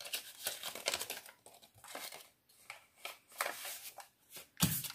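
Folded paper dollar bill crinkling as it is unfolded and handled, in irregular crackles and rustles, with a louder rustle near the end.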